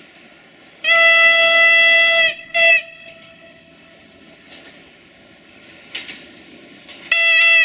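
Siemens Desiro VT642 diesel multiple unit sounding its horn: a long single-note blast about a second in, a short blast right after it, and another long blast starting near the end. A low rumble from the train runs underneath.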